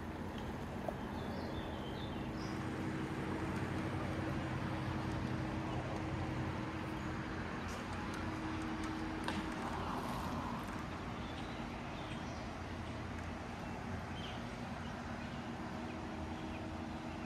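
Steady outdoor background of road traffic hum mixed with the rush of a shallow river, with a few faint bird chirps.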